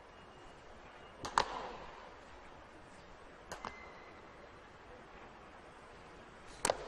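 Faint ballpark background from a baseball broadcast, broken by three sharp double clicks: about a second in, midway, and near the end, the last as the pitch reaches the catcher.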